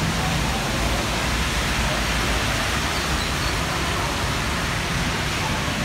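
Steady heavy rain, a dense even hiss.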